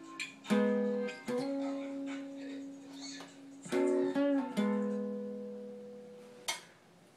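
Strummed acoustic guitar playing a few chords that ring out and die away, with a quick run of strums about four seconds in and a short unpitched scrape near the end.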